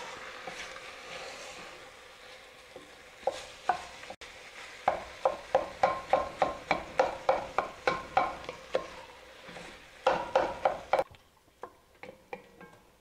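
Ground bison sizzling as it browns in an enamelled Dutch oven, with a wooden spoon stirring and breaking up the meat. From about five seconds in, the spoon knocks against the pot about three times a second, and the sound drops off suddenly near the end.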